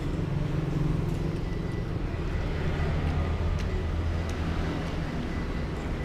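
Low engine hum of a motor vehicle running nearby. Its pitch sits higher for about the first second and drops lower from about two and a half seconds in, with a few faint light ticks over it.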